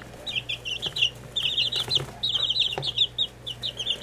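Four 17-day-old chicks peeping: short, high peeps coming many times a second in quick runs, with brief gaps between runs.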